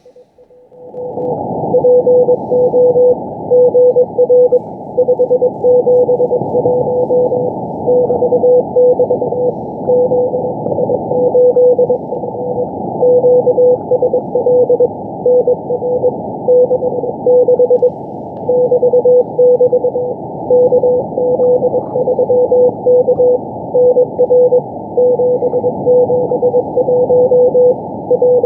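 Morse code (CW) from the Israeli Navy's 4XZ station, received on 4331 kHz shortwave: a single tone near 500 Hz keyed on and off in dots and dashes over band hiss. It is sending a coded message in groups of letters and numbers. The hiss comes up about a second in.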